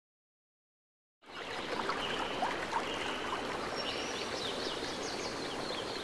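Steady rush of a waterfall's falling water, with small birds chirping over it; it starts abruptly about a second in, after silence.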